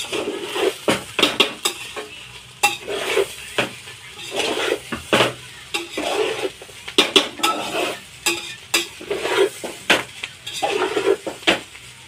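A metal spatula stirring and tossing fried rice in a large aluminium pot, scraping and clinking against the pot's sides in repeated uneven strokes, about one or two a second.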